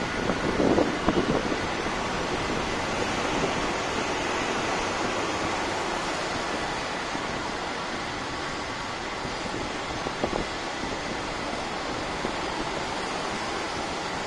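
Steady rush of wind over the microphone mixed with the hum of road traffic on the highway below, with buffeting gusts in the first second or so.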